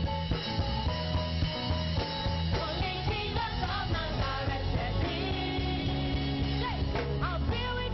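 Live praise-and-worship band playing a steady, upbeat song with a strong bass and drum beat, with singing coming in a couple of seconds in.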